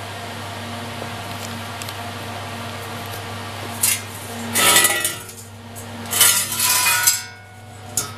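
Steel tubing of a welded frame clinking and scraping on a concrete floor, in two bursts about five and seven seconds in, over a steady low hum.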